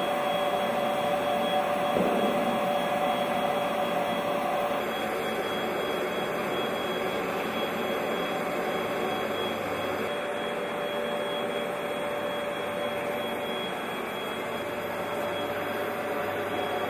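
CNC router's spindle motor running steadily while carving foam, a constant whine over a hiss of motor and cutting noise.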